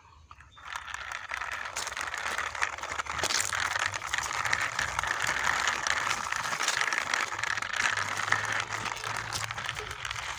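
Plastic wheels of a toy airliner rattling and clicking steadily as it is pushed along by hand, starting about half a second in.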